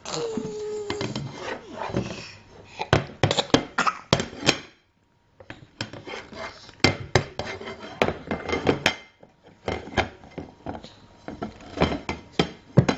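Irregular scraping, clinking and knocking of a plate or dish as cake is eaten from it, with a brief squeak near the start.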